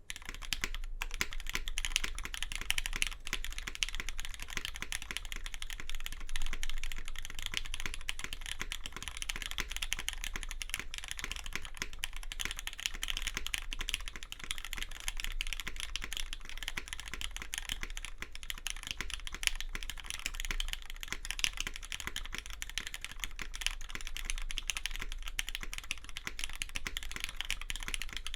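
Continuous typing on a custom mechanical keyboard, a Matrix 8xv2.0 with an aluminum plate, Krytox 205g0-lubed Cherry MX Black linear switches and GMK keycaps: a steady, dense run of keystroke clacks.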